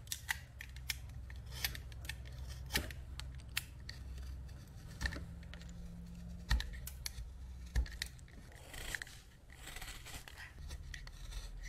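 A knife blade carving a wooden lure body, cutting off shavings in short, irregular strokes, with a few longer scraping cuts.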